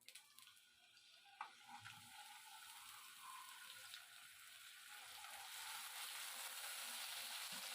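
Ginger-garlic paste sizzling in hot oil in a kadhai, the hiss faint at first and growing steadily louder. A single light knock comes about a second and a half in.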